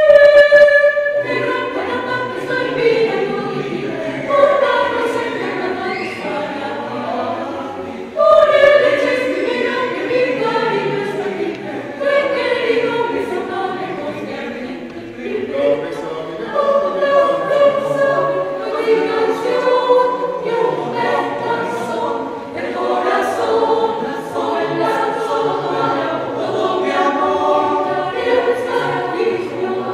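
Mixed choir of men's and women's voices singing in several parts. It opens on a single held note; the full parts come in about a second in, with a strong fresh entry about eight seconds in.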